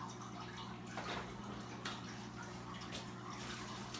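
Faint steady water trickle over a low hum, with a few light rustles of plastic as the fish bags and bin-bag liner are handled.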